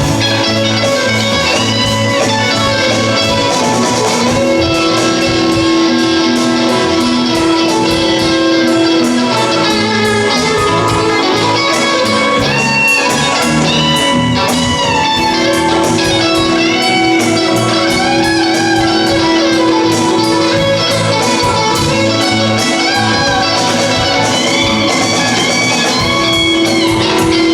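A rock band playing live: electric guitars over bass and drums, with a held low note that drops out and comes back several times.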